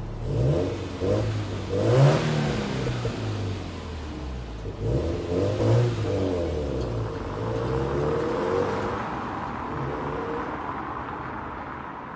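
Subaru WRX STI (VAB)'s turbocharged EJ20 flat-four engine and exhaust accelerating away: the revs climb twice, dropping sharply after each climb about 2 and 6 seconds in, then the engine runs steadier and fades as the car recedes.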